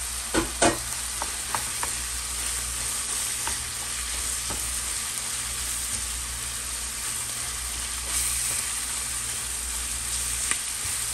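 Ground pork sausage, onion and green chili peppers sizzling in a frying pan with a steady hiss while a wooden spoon stirs them. A couple of sharp knocks sound just under a second in.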